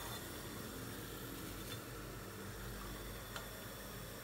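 Yeast donut dough frying in hot oil, the oil sizzling softly with a couple of faint crackles.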